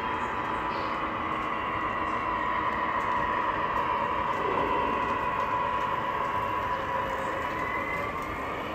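O scale model trains running on the layout's track: a steady rolling hum with a high whine held over it, its pitch shifting slightly near the end.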